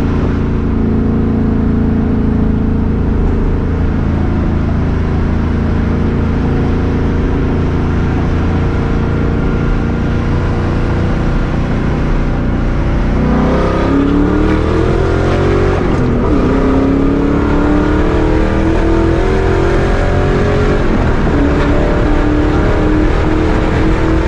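A 2004 Mustang GT's V8, heard from inside the cabin through a new Borla ATAK cat-back exhaust with a catless X-pipe, running steadily at cruise. About halfway through it accelerates and the exhaust note climbs in pitch, drops back briefly twice as at gear changes, then settles to a steady higher note.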